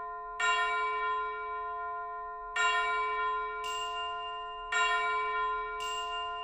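Background music: three bell-like chimes about two seconds apart, each ringing out and slowly fading, with a soft high shimmer swelling in between.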